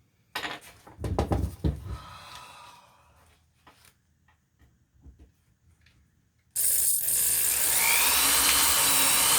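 Two or three sharp knocks of handling a small workpiece, then, about two-thirds of the way in, a hand-held electric drill switches on suddenly and runs loud and steady, its whine climbing in pitch as the motor spins up.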